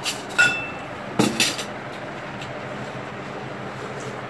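Metal serving tongs clinking against ceramic plates and bowls: a handful of sharp clinks in the first second and a half, one with a short ring, over a steady background hiss.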